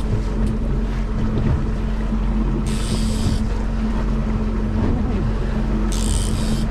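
A trolling boat's engine running steadily, a low drone with a constant hum. Two short bursts of hiss break in, about three seconds and about six seconds in.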